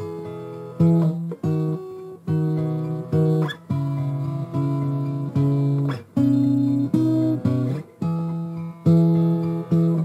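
Background music: an acoustic guitar strummed in chords, with a new strum about every half second to second.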